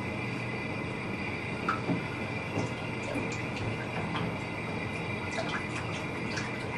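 Water running steadily into a bathtub, with small splashes and knocks from a toddler playing in the water.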